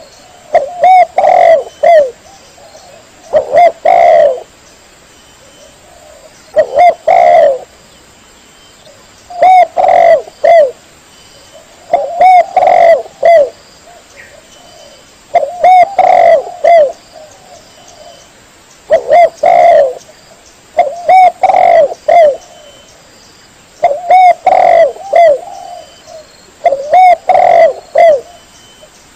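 Spotted dove (tekukur) cooing: loud phrases of several short coos, repeated every two to three seconds.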